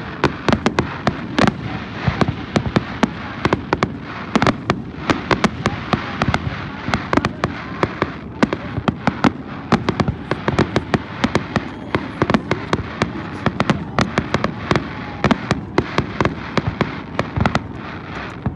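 Aerial fireworks going off: a dense, irregular run of sharp cracks and bangs, many to the second, over a continuous rumble of shell bursts.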